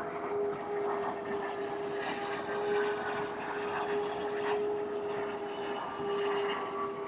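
A motor drones steadily, holding one pitch.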